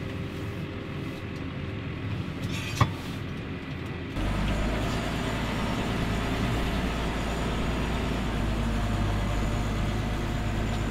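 Tractor engine running steadily, heard from inside the cab, with a single sharp click a little under three seconds in. About four seconds in the sound abruptly turns louder and fuller and stays that way.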